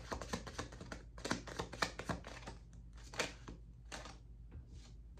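A deck of oracle cards being shuffled overhand in the hands: a quick run of light card flicks and slaps for about two seconds, then sparser ones.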